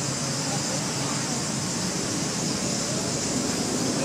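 Steady outdoor background noise, a constant even hiss with no distinct events.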